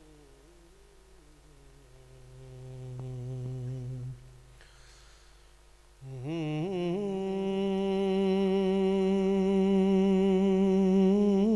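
A man's unaccompanied voice singing long, wordless held notes into a microphone, the opening of a naat recitation. A softer held note comes about two seconds in, then from about six seconds a much louder note steps up in pitch and is held with a slight waver.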